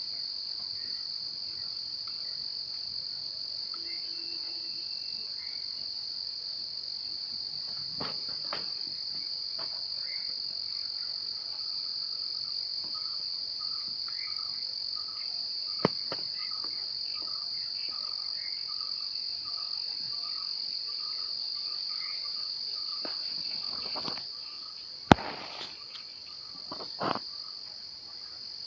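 Steady, unbroken high-pitched drone of insects, with a faint short chirp repeating about twice a second through the middle and a few sharp clicks, the loudest near the end.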